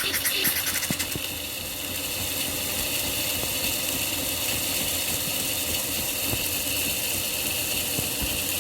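Philips Series 2200 espresso machine running, with a steady mechanical hum under a steady hiss.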